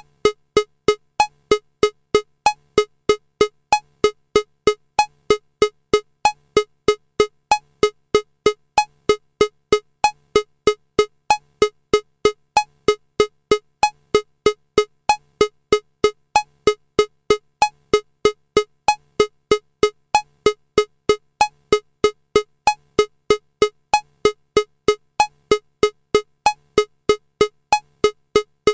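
Electronic metronome clicking at 190 beats per minute in 4/4, about three clicks a second. Every fourth click is a higher-pitched accent marking the first beat of the bar.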